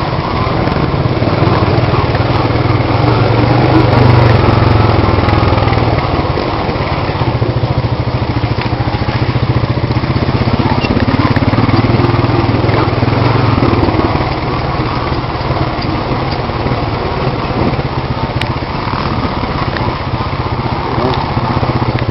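Off-road vehicle engine running continuously, with small rises and falls in level.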